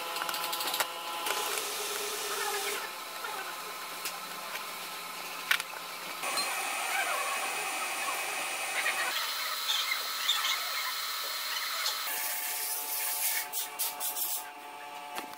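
Small metal clicks and scrapes from a dial bore gauge being handled, assembled and set against a micrometer, over a steady hum. One sharper click about five and a half seconds in.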